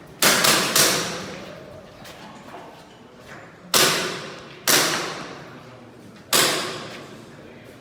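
Airsoft pistol shots echoing in a large room: two quick shots near the start, then three single shots spaced a second or more apart.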